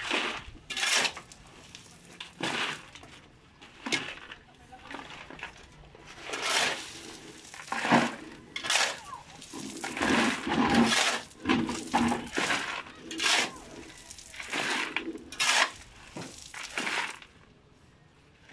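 Steel shovel scraping into a pile of gravel and river stones and tipping them into plastic buckets, the stones clattering and clinking in irregular scoops and dumps.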